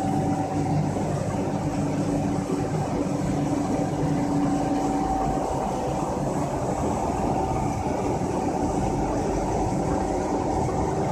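Softgel encapsulation machinery running: a steady mechanical hum with a few constant whining tones over it.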